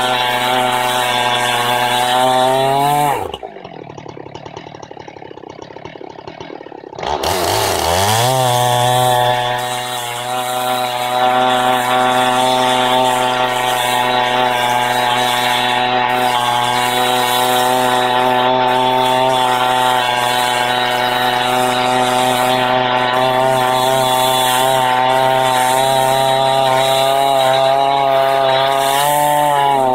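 Husqvarna 390XP two-stroke chainsaw with a 28-inch bar and ripping chain at full throttle, rip-cutting lengthwise through a Douglas fir log in a Granberg Mini Mill. About three seconds in it drops to idle for a few seconds, then revs back up and settles into a long steady cut.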